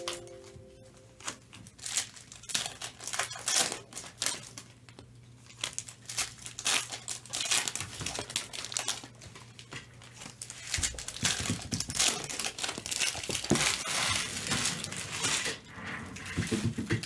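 Foil trading-card pack wrappers crinkling in quick, irregular rustles as packs of Topps Chrome Sapphire Edition baseball cards are opened and the cards handled.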